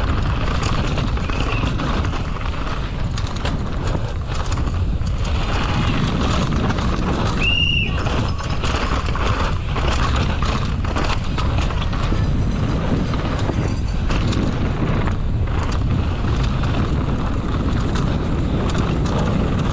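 Downhill mountain bike ridden fast over a rough dirt race track, heard from the bike-mounted camera: wind rushing over the microphone and a steady tyre rumble, with constant rattling and knocks from the bike over roots and rocks. A brief high squeal about a third of the way through.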